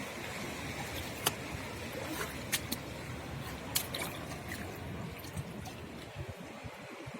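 Seawater trickling and washing among rocks and rock pools, with a few sharp clicks between about one and four seconds in.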